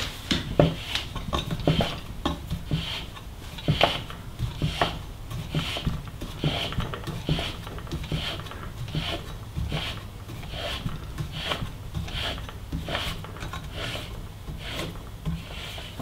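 Hand-turned metal bearing press winding a BB86 necked bottom bracket into a bicycle frame's bottom bracket shell, under load as the cup is pressed in. A rasping rub about once a second with each stroke of the handle, with small metal clicks between.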